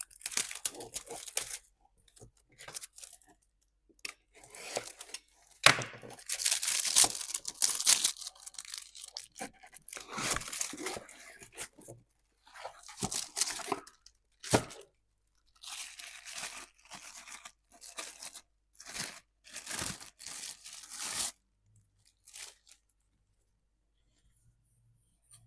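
Irregular bursts of scraping, crackling and tearing-like noise with sharp clicks and short pauses between them, as of parts, plastic or packaging being handled during repair work.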